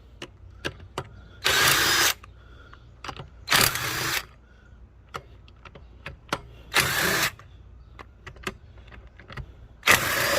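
Four short bursts from a power or air tool during a tire and wheel change, each about half a second long, with scattered sharp metallic clicks and knocks between them.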